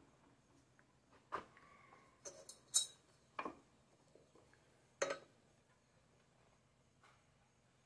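A handful of light metallic clicks and clinks, with one brief squeak, as hands work at the carburetor and air intake of an old small engine that is not running.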